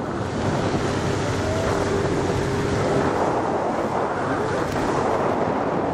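Steady wind rushing over the camera's microphone while riding a parasail, with a faint low steady hum beneath it.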